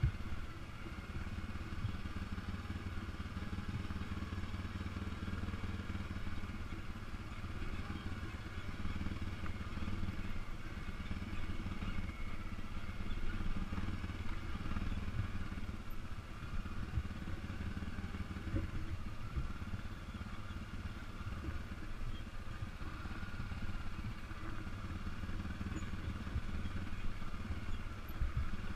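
ATV engine running steadily while riding along an off-road track, heard from the rider's helmet, a continuous low drone with irregular low thumps.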